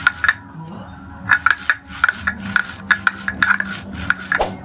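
Stone roller grinding dried red chillies on a flat grinding stone (sil-nora): stone scraping on stone in quick back-and-forth strokes, a short pause about half a second in, then a steady run of strokes that stops near the end.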